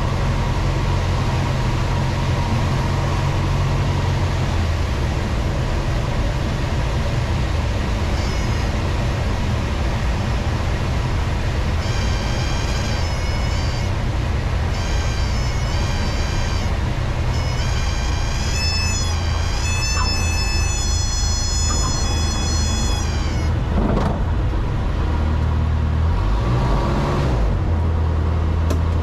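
Cessna 162 Skycatcher's Continental O-200 engine and propeller droning in the cabin through the landing. A high electronic stall-warning tone chirps on and off from about halfway in, then holds steady for a few seconds as the plane flares. A knock near the end comes about when the wheels touch down, after which the drone changes as the plane rolls out.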